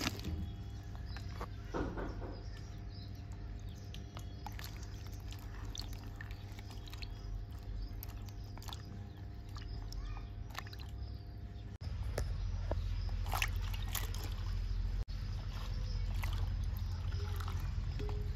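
Okra pods tipped from a plate splash into a steel bowl of water, then the water sloshes and the pods knock softly as a hand swishes them around to wash them. A steady low hum runs underneath and grows louder about two-thirds of the way through.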